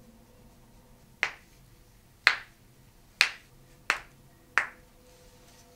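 Five sharp cracks, a second or less apart: finger joints popping as a chiropractor manipulates the hand.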